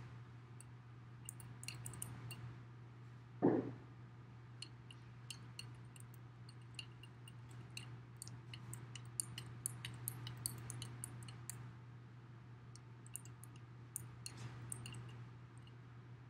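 Small paint roller being dry-rolled back and forth over roofing tar paper, giving faint, irregular light clicking and crackle. A single brief louder sound comes about three and a half seconds in.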